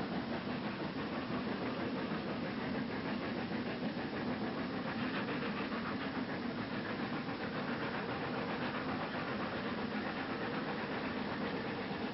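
A steam locomotive drawing its passenger train slowly past, over a steady low hum.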